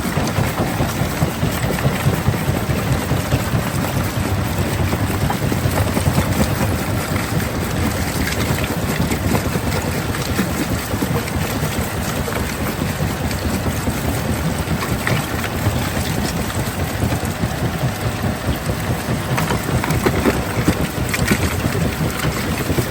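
Stone-crushing machinery running steadily: a heavy low rumble with a continuous rattle of rock.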